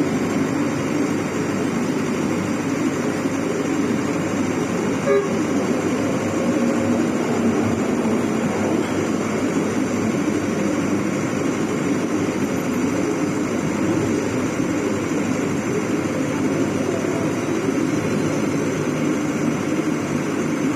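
Engine of a wheeled water well drilling rig running steadily, with a single short knock about five seconds in.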